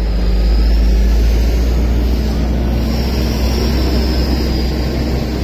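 A car engine idling close by, a steady low rumble with a faint hum.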